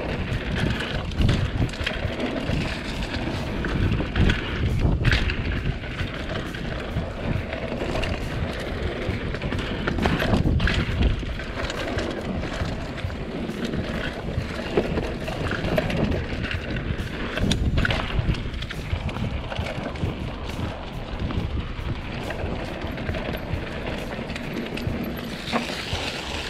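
Mountain bike riding over a dirt forest singletrack: wind rushing over the microphone, tyres rolling on dirt and dry leaves, and the bike rattling over bumps with a few sharp knocks.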